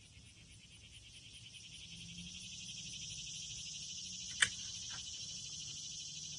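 A cicada's high, steady buzz, slowly swelling louder, with one sharp click about four seconds in.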